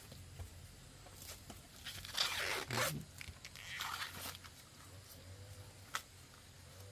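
Short rough tearing, rustling sounds in two main bursts, with scattered clicks and one sharp click near the end.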